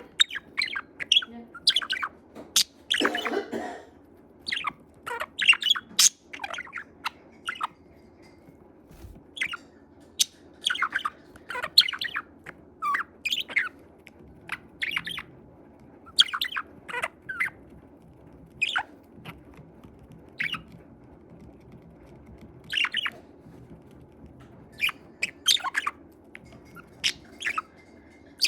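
Budgerigar chirping and chattering in short, sharp calls that come in clusters with pauses between them, plus a brief, harsher, noisier burst about three seconds in.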